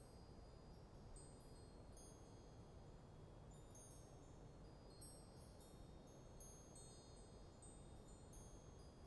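Faint wind chimes tinkling at irregular moments, several high ringing notes overlapping, over a low steady rush of light wind.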